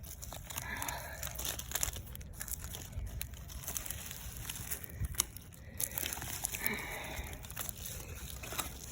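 Digging by hand through dump-site dirt and buried debris: scattered crunches, scrapes and small clicks.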